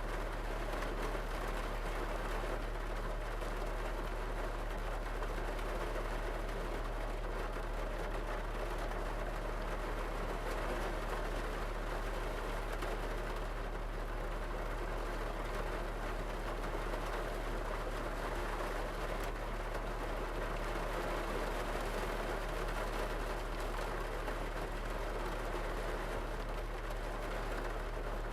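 Rain falling steadily on a parked car, heard from inside the cabin: an even patter on the roof and windows over a steady low hum.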